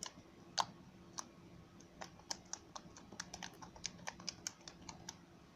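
Slime being squeezed and poked by hand, making irregular small clicks and pops, about two to three a second.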